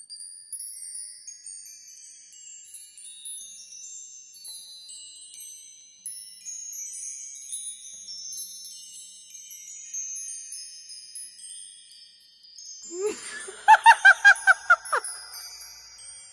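Intro music of high, tinkling chimes, many short bell-like notes overlapping. About thirteen seconds in, a loud, fast pulsing laugh-like cackle breaks in for about two seconds.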